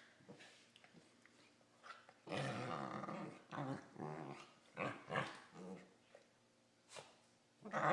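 Two corgis play-growling while mouthing each other, the odd grumbling noises the owner likens to a Wookie. A long growl comes a couple of seconds in, then a run of shorter growls, and another loud one starts near the end.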